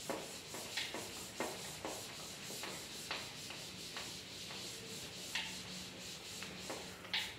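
Writing by hand during a lecture: irregular short scratchy strokes, the sharpest near the end.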